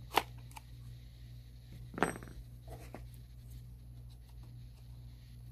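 Small packaging handled by hand: a sharp click near the start, then a short, louder scraping rustle about two seconds in, and a few faint taps, over a steady low hum.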